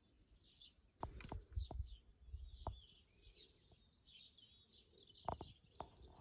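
Small birds twittering and chirping steadily. Over this come a handful of light clicks and low knocks as a metal tin tray is handled and set down on wooden boards, clustered about a second in and again twice near the end.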